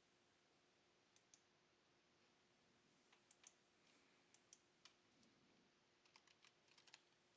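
Faint, scattered clicks of a computer keyboard and mouse, with a quick run of keystrokes near the end, over a faint steady hum.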